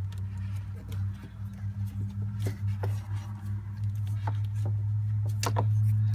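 A steady low hum with scattered light clicks and scrapes, from a rag-wrapped flat-blade screwdriver being twisted inside a spark plug hole to wipe grease and metal shavings off the cylinder wall. The hum grows a little louder near the end.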